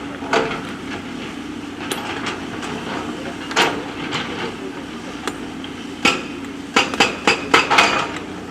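JCB backhoe loader's diesel engine running steadily, with sharp knocks and clanks of the bucket striking stones. Single knocks come about a third of a second in and about three and a half seconds in, then a quick run of them in the last two and a half seconds.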